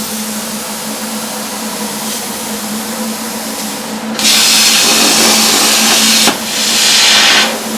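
Plasma cutter running on 2 mm steel plate at 30 amps, with a steady hum and hiss from the machine. About four seconds in the torch starts a loud, even hiss that lasts about two seconds. It stops abruptly, then a second, shorter burst follows.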